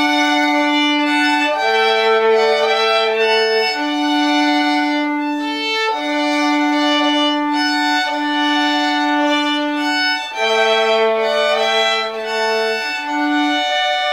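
Three violins playing a slow, simple tune as a canon, the parts overlapping so that several different notes sound at once, mostly long held notes.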